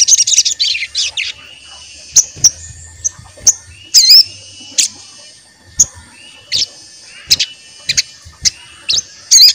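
Sogon (crested jay) calling: a fast rattling chatter of high notes, then single sharp chirps spaced half a second to a second apart, with the rapid rattle starting again near the end.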